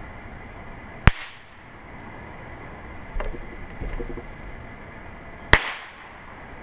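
Two firecrackers going off on a deck railing, about four and a half seconds apart, each a single sharp bang.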